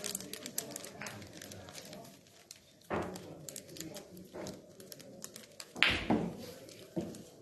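Billiard balls clicking and knocking in a game of boccette. A flurry of quick clicks comes at the start, then single knocks about three, six and seven seconds in; the one near six seconds is the loudest.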